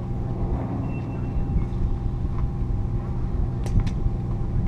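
An engine idling steadily with an even, low drone. A couple of short, sharp clicks come near the end.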